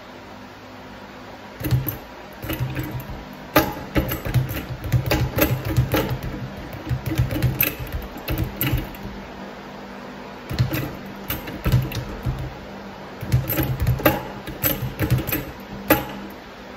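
Leather speed bag being punched, rattling rapidly against its wooden rebound platform in quick runs of knocks, starting about a second and a half in, with a short break about halfway.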